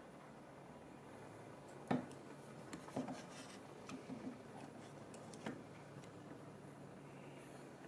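Light clicks and knocks of an HO gauge model locomotive being handled and set down onto its track, the loudest knock about two seconds in, with a few smaller clicks after.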